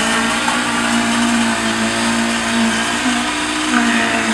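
Concrete mixer truck running steadily while discharging concrete down its chute, a loud, even mechanical hum with a held tone.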